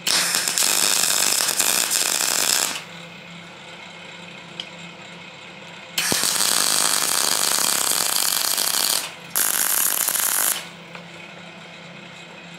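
Welder laying short welds to fix nuts onto a steel plate: a loud crackling hiss in three bursts, the first about two and a half seconds long, then two more about six seconds in, split by a brief break.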